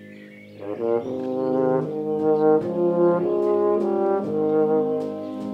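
Euphonium playing a solo melody over a band's soft held chord, coming in loudly about a second in.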